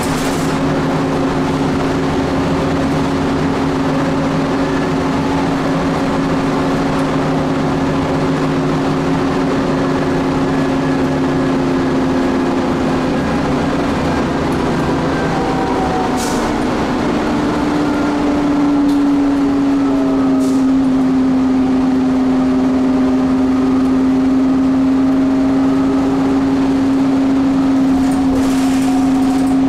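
Inside the cabin of a Nova Bus transit bus at highway speed: the engine and drivetrain drone steadily over tyre and road noise. About eighteen seconds in the drone's pitch shifts slightly and it grows a little louder.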